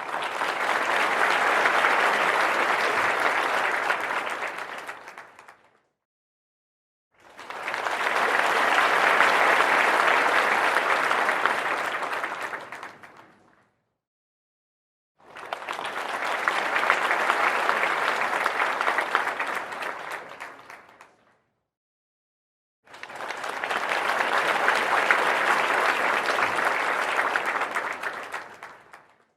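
Four separate rounds of crowd applause, many hands clapping at once, each lasting about six seconds and tailing off, with short silences between them.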